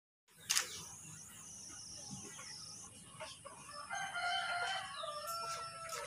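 Rooster crowing, one long drawn-out crow starting about four seconds in, over faint outdoor background noise.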